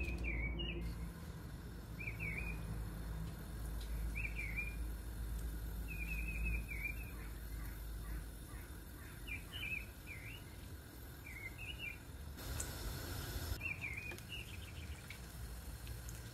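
A small bird chirping in short, repeated phrases every couple of seconds over a steady low hum, with a brief hiss about three-quarters of the way through.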